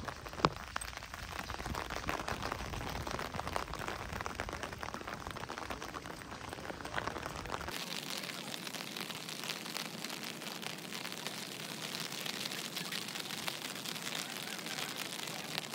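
Steady hiss of light rain outdoors, with a low rumble on the microphone that stops abruptly about eight seconds in. There is a single sharp click about half a second in.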